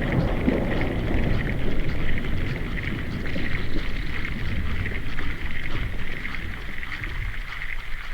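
Underwater noise picked up by a diver's camera: a steady rushing hiss with many faint rapid clicks throughout.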